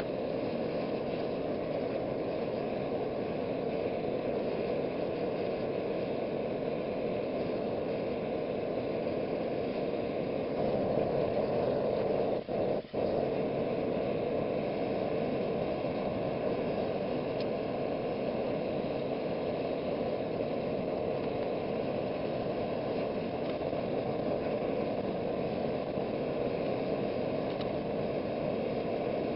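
Homemade forge running: a steady rush of fire and forced air, breaking off for an instant twice near the middle.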